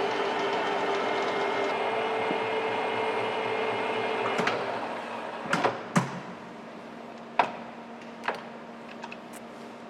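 Takisawa TSL-550 engine lathe running with a steady mechanical hum from its spindle drive, which stops about four and a half seconds in and winds down. Several sharp knocks follow over the next few seconds, over a quieter steady hum.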